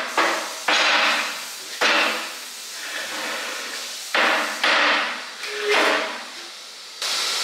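Heavy metal clanks as a rusty rear-axle part with its brake disc is set down and knocked about on a steel welding table, about six sharp knocks, each ringing out briefly.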